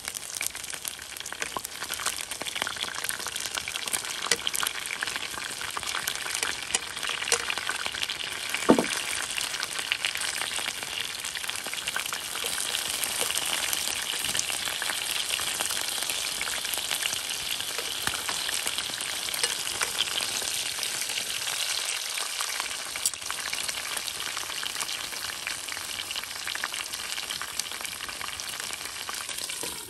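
Food frying in oil in a pan: a steady sizzle with dense crackling, and one sharp knock about a third of the way through.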